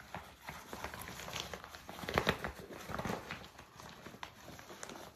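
Fabric rain fly and body of a disc golf bag rustling and crinkling as they are handled and pulled at, with louder rustles and knocks about two to three seconds in.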